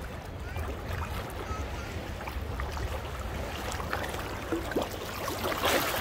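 Sea water washing and splashing in the shallows, with a louder splash near the end.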